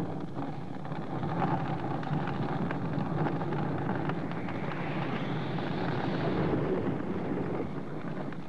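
A wooden house burning: the steady roar of the fire, with crackling of the burning timber throughout, swelling a little past the middle.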